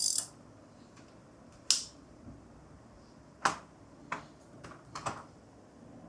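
Plastic vacuum-cleaner attachments clicking and knocking as the large brush is fitted: a handful of sharp, irregular clicks, the sharpest about two seconds in and another about three and a half seconds in, then a few lighter ones.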